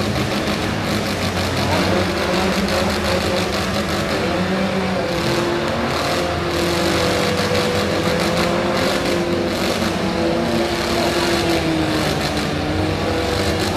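Several four-cylinder demolition derby cars running hard together, their engines revving up and down over a dense wash of noise.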